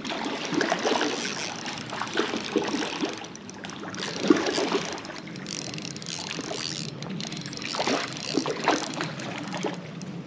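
A hooked trout splashing at the surface of a creek while the angler cranks a spinning reel, with irregular splashes and reel clicks over running creek water.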